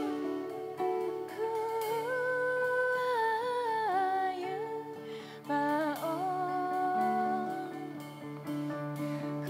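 A woman singing a slow melody, sliding between long held notes, over a plucked sape' (Bornean boat-lute) and a steady low drone, with guitars playing along.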